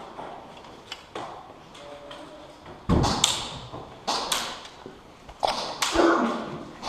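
A run of sharp knocks and thuds, several in close pairs, starting about three seconds in and ringing in a large hard-walled room, with a few fainter clicks before them.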